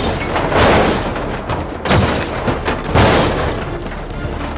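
Heavy crashing and booming impact sound effects of a cartoon road roller tumbling into a pit: three loud thuds about a second apart, each with a rumbling tail.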